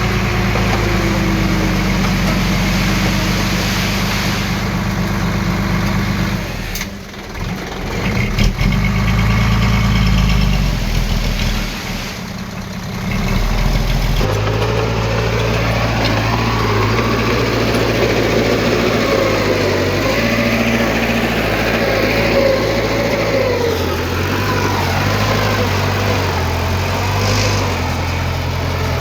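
Heavy earthmoving machinery engine running, its note shifting up and down, with short dips in loudness about seven and twelve seconds in.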